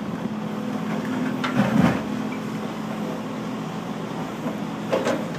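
Diesel engine of a Sumitomo hydraulic excavator running steadily under digging load. A short louder burst of noise comes about one and a half seconds in, and a smaller one near the end, as the bucket works the soil.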